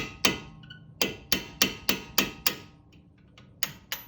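Sharp metal-on-metal taps on a pointed punch, driving a pad retaining pin out of a Brembo front brake caliper: about eleven ringing strikes in quick runs of two to six, with short pauses between.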